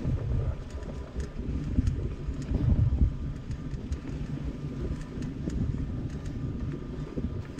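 Mountain bike being ridden over a dirt trail: an uneven low rumble of tyres and wind on the camera microphone, with scattered sharp clicks and rattles.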